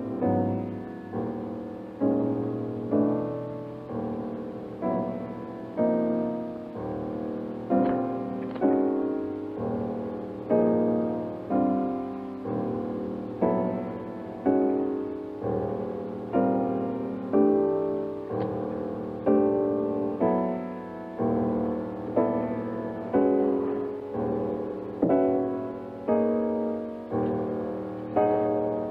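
Background music: a piano playing slow, evenly paced notes, each struck and left to fade before the next, a little more than one a second.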